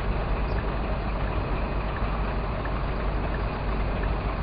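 Scania R420 truck's six-cylinder diesel engine running steadily, heard from inside the cab, with most of its sound deep and low in pitch.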